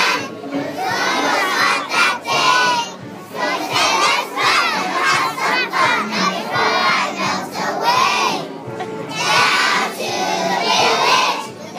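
A group of kindergarten children singing together, loud and half-shouted, in phrases with short breaks between them.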